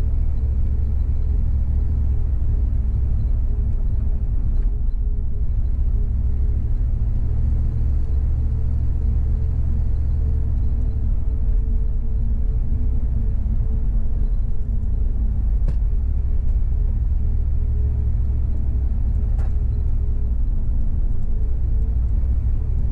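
SUV driving at a steady pace: an even low road rumble with a steady engine hum.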